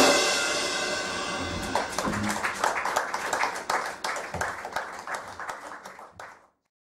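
A theatre organ's final chord cut off at the start and ringing away, followed by applause and clapping that fade out near the end.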